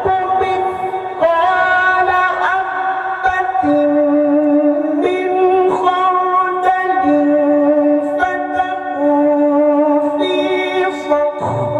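A man reciting the Quran in melodic tilawah style, holding long, drawn-out notes that step up and down in pitch with small ornaments.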